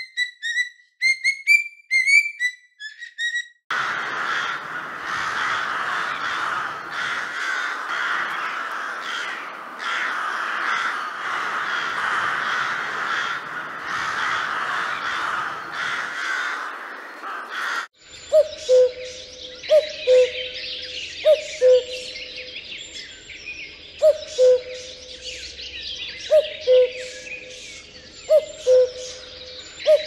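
Cockatiel chirping for the first few seconds. Then a flock of crows cawing together in a dense, continuous din. From about 18 s a cuckoo gives its falling two-note 'cuck-oo' call over and over, about every second and a half, over the higher chirping of other birds.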